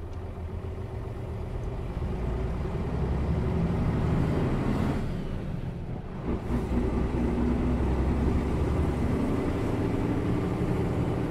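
Mercedes-Benz O407 bus's diesel engine pulling under way, heard from inside the bus with road noise. The sound builds over the first few seconds, dips briefly about six seconds in, then picks up again.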